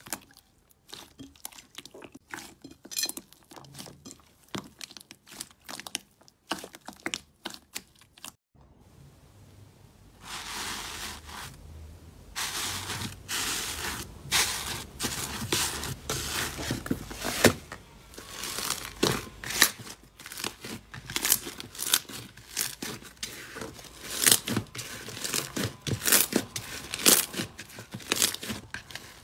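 Slime being pressed and pulled by hand, giving a run of small crackles and pops. After a brief hush about a third of the way in, the crackling comes back louder and denser.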